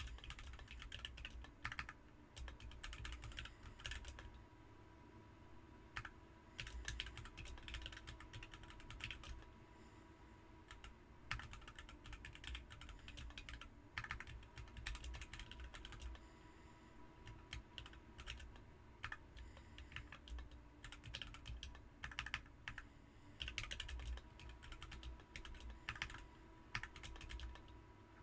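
Typing on a BM43 40% mechanical keyboard fitted with Ms Piggy switches: quick runs of keystrokes broken by short pauses.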